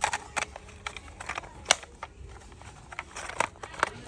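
Plastic toy school bus parts being handled and pressed together: irregular small clicks and knocks, the sharpest about halfway through.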